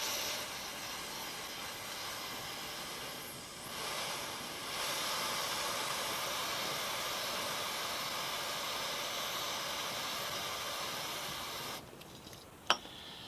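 Aerosol can of WD-40 chain cleaner spraying onto a motorcycle drive chain in a long, continuous hiss that eases off briefly about three and a half seconds in, then comes back stronger until it stops near the end. A single sharp click follows just after.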